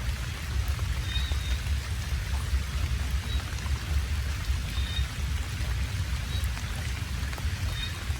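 Steady rain falling, an even hiss over a strong low rumble.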